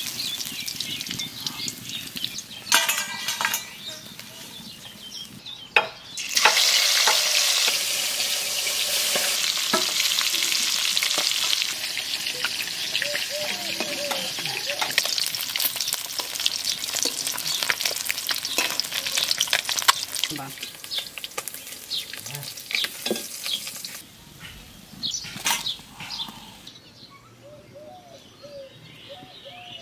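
Whole climbing perch sizzling as they deep-fry in hot oil in an aluminium kadai, with a metal spatula and wire strainer scraping and knocking against the pan as the fish are turned. The sizzle grows loud about six seconds in and falls away after about twenty-four seconds.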